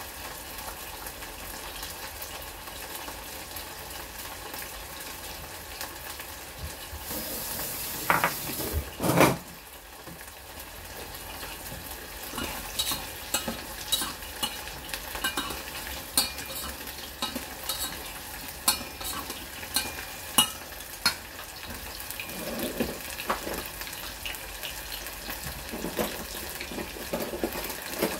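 Pork ribs frying in a stainless steel saucepan, a steady sizzle. About eight seconds in, the hiss grows louder with two clanks against the pot. From about twelve seconds on, a run of sharp clicks and taps follows as a utensil stirs in the pot.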